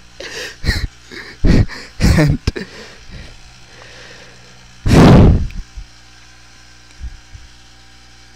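Handheld wired microphone held at the mouth while being jostled: a few handling thumps and breath blasts straight into the mic, the loudest a half-second blast about five seconds in.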